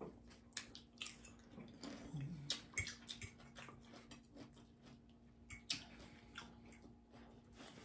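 A person chewing food close to the microphone: faint, irregular mouth clicks and smacks.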